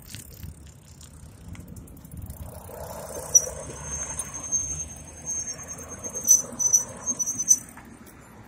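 A steady high-pitched squeal starts about three seconds in and cuts off near the end, with sharp spikes on it: the bike's brakes squealing as it slows to a stop at the street, over road and traffic noise.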